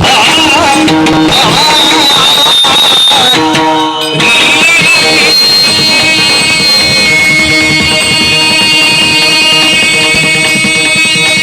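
Devotional song: a voice sings a wavering, ornamented melody over instrumental accompaniment. About four seconds in it gives way to an instrumental passage of steady held tones.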